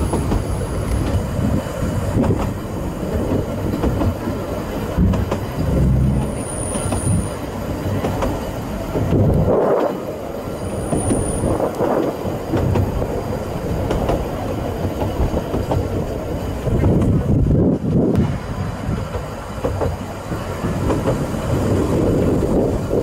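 Narrow gauge train's carriage wheels rumbling along the rails, heard from an open carriage. Twice, brief high-pitched wheel squeals come through as the train takes curves.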